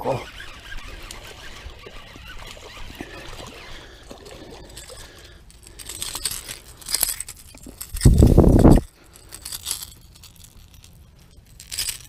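Rustling and handling noises in bankside grass, with a single loud, dull thump lasting just under a second about eight seconds in.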